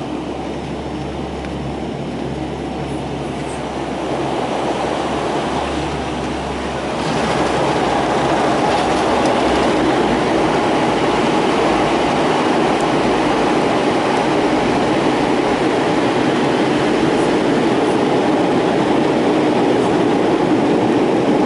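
Inside the cabin of a Bombardier Dash 8 turboprop during landing: steady engine and propeller noise, then the rush and rumble of the wheels rolling on the runway after touchdown. It grows louder in two steps, about four and seven seconds in, then stays loud through the rollout.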